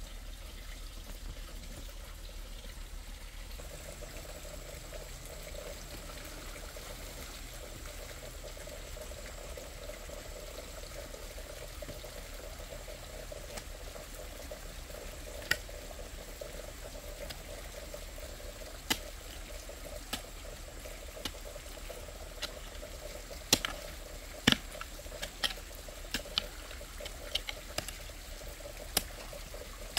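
Steady sound of liquid, running or bubbling, with a dozen or so sharp clicks or knocks scattered through the second half.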